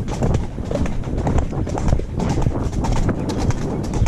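A ridden horse's hooves clip-clopping in a steady, regular beat on a tarmac path.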